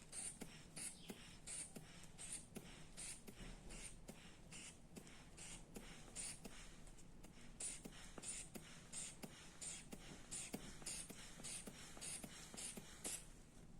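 Rubber hand bulb of a manual blood-pressure cuff being squeezed to inflate the cuff: a rhythmic puff of air with a small click about twice a second, stopping shortly before the end.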